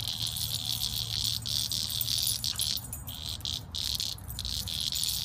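Dense chorus of insects, a steady high-pitched buzzing with a few brief dropouts.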